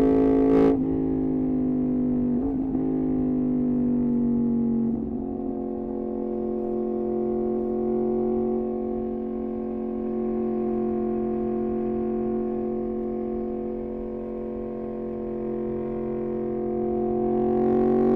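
Yamaha MT-10's crossplane inline-four through an Austin Racing exhaust, running at steady revs. A sharp crack comes a little under a second in, and the note drops in steps about two and a half and five seconds in. It then holds and eases slightly lower before climbing again near the end.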